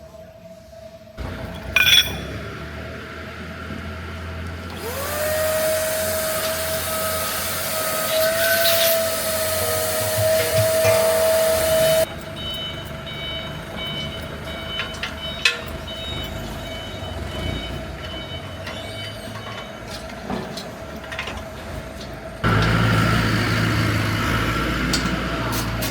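Factory workshop machinery in several abruptly cut shots. A sharp knock comes about two seconds in. A machine then runs up to a steady whine with a hiss over it, which stops suddenly, followed by quieter clatter and hum and, near the end, a louder low hum.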